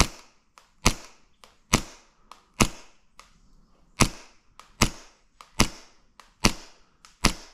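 Gas blowback airsoft pistol firing single shots in slow, steady aimed fire: nine sharp cracks about one every 0.85 s, with a slightly longer pause about three seconds in. Fainter ticks fall between some of the shots.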